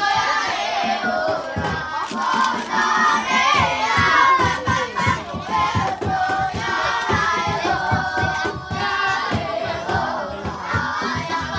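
Music for a Wonosobo topeng mask dance: quick, steady drum beats under several voices singing together.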